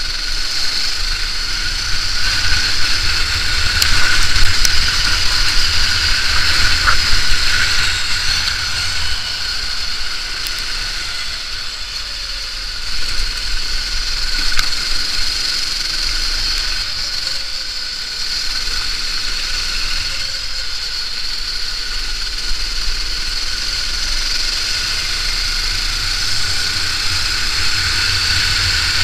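Sodi rental go-kart engine running at racing speed, heard from a camera mounted on the kart, with a steady low rumble beneath it. The level swells and dips a few times as the kart works through the track.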